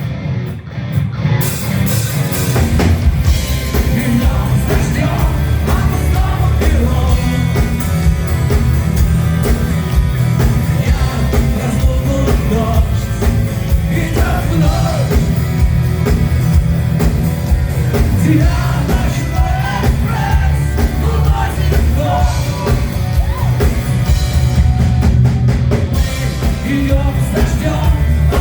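Live rock band playing with a male singer, drums, guitars and heavy bass, recorded from the audience. The sound drops briefly just after the start, then the full band comes back in about two seconds later.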